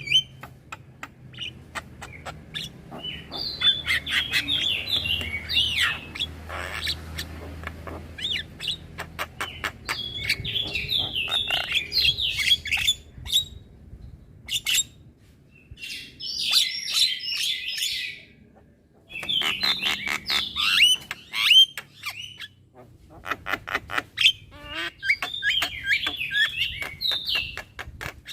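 Young Javan myna chattering in bursts of squeaky, whistled notes mixed with rapid clicks, with short pauses between the bursts.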